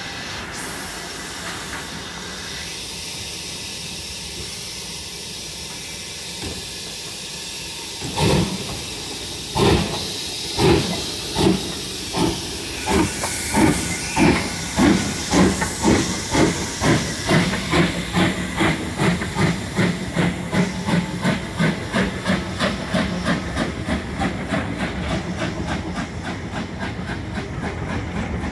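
BR Standard Class 2MT steam locomotive 78022 hissing steam at a standstill, then pulling away. About eight seconds in, slow, loud exhaust chuffs begin and steadily quicken as the train gathers speed, until they run together near the end as the coaches roll past.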